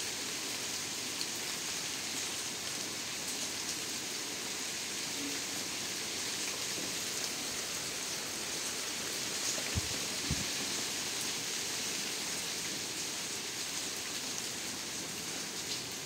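Steady rain falling on grass and leaves: an even hiss with scattered drop ticks. Two soft low thumps come a little after the middle.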